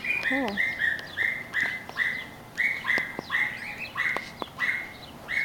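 A steady run of short, high animal calls, each held at one pitch, repeating about two to three times a second.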